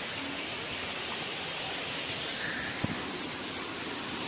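Waterfall rushing steadily, an even hiss of falling water, with one short click about three seconds in.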